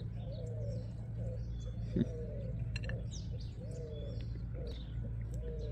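A dove cooing over and over, about one soft coo a second, with small birds chirping faintly in the background.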